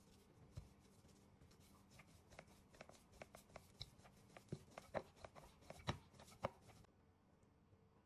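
Metal spoon tapping and scraping as chicken filling is spooned onto rolled-out dough on a wooden board: a quick run of light clicks, loudest just past the middle, stopping shortly before the end.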